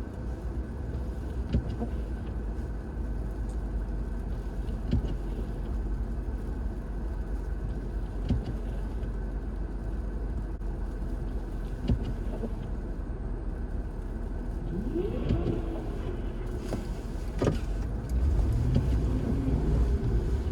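Car running over a snowy road with a steady low rumble and occasional knocks, its engine revving up in rising sweeps about fifteen seconds in and running louder near the end.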